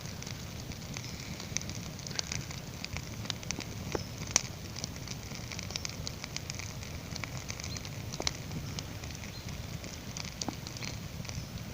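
Small wood campfire crackling, with irregular sharp pops.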